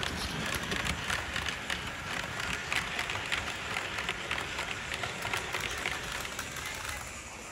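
Model trains running on a layout: a model steam locomotive and its passenger coaches rolling along the track, giving a dense, irregular patter of small clicks and rattles from the wheels on the rails.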